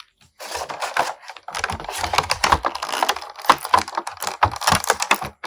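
Small hard plastic parts clicking and clattering in quick, uneven succession as an action figure's swappable hands and accessories are handled and fitted.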